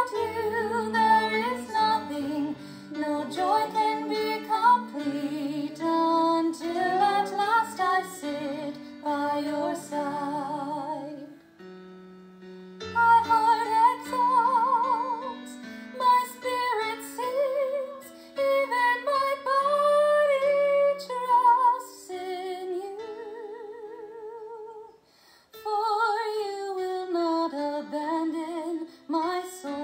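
A woman singing slow, held phrases with vibrato over sustained instrumental accompaniment, with short breaks between phrases.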